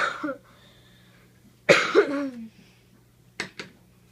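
A person coughing twice, about two seconds apart, followed near the end by two quick sharp clicks.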